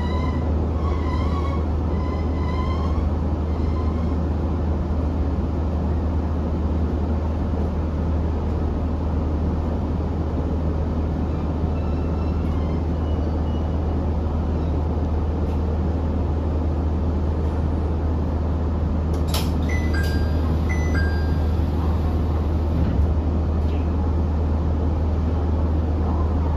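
Inside a diesel railcar: a steady low engine hum and rumble. A wavering wheel-and-brake squeal fades out in the first few seconds as the train slows to a stop. About two-thirds through comes a sudden burst of hiss with a few short tones.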